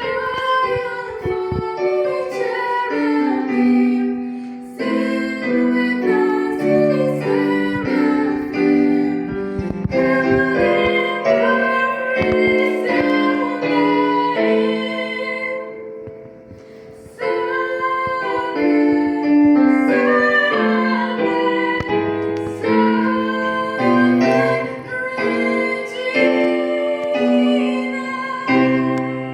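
Choir singing a hymn with piano accompaniment, in two long phrases with a short break about sixteen seconds in.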